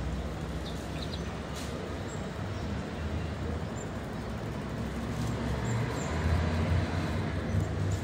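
Distant approaching diesel freight locomotive: a low engine rumble that grows a little louder about five seconds in, with a few faint bird chirps.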